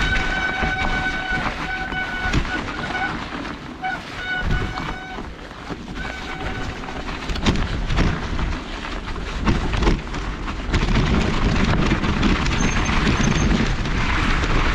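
Bicycle brakes squealing in short on-and-off bursts over the first seven seconds or so, over rushing tyre and wind noise from riding a snowy trail. A few sharp knocks from bumps come through, and the low rushing noise gets louder for the last few seconds.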